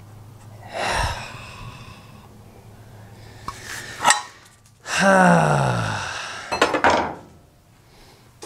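A man's wordless sigh about a second in, then a long groan of frustration falling in pitch about five seconds in. Clinks and knocks of the broken intake manifold pieces being handled come near four and seven seconds.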